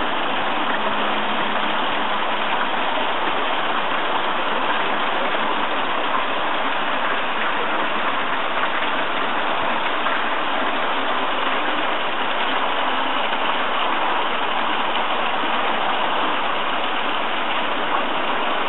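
Garden pond water feature: falling water splashing steadily and without a break.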